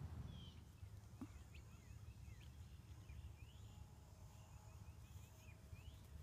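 Near silence: a low steady rumble with faint, short bird chirps scattered throughout.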